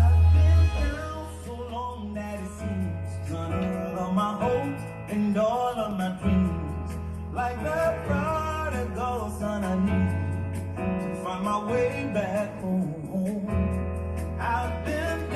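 Gospel backing track playing back: the instrumental intro, with a sustained bass and a melody line over it.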